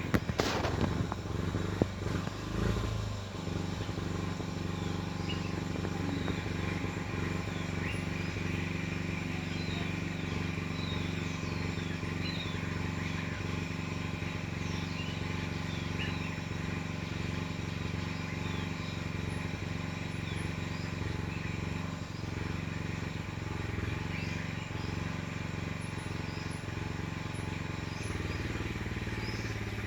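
An engine running steadily at an even speed, with small birds chirping now and then over it. A sharp knock and some clatter come right at the start.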